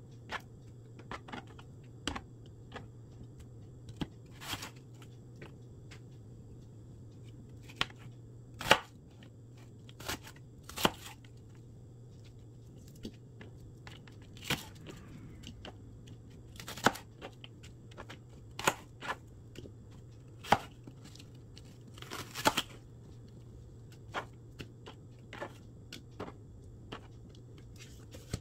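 Kitchen knife chopping leafy greens and an onion on a plastic cutting board: separate knife strikes against the board at uneven intervals, with a quick run of strikes a little past two-thirds of the way through. A steady low hum sits underneath.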